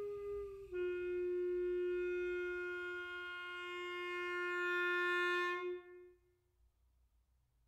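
Solo clarinet holding a long note that steps down slightly about a second in, swells, then stops about six seconds in with a brief ring of room echo.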